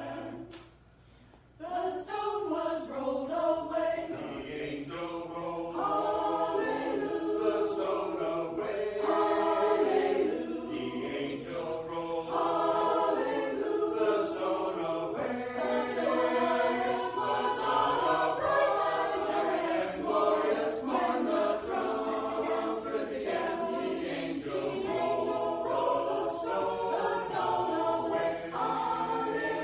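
Church choir singing a hymn or anthem in parts, pausing for about a second near the start before the voices come in again.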